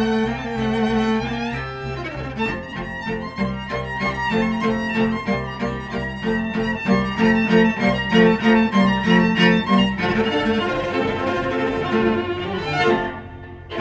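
Classical string music with violin and cello, from a small string ensemble. Through the middle it plays quick, repeated short notes, then moves to a smoother passage whose loudness dips briefly near the end.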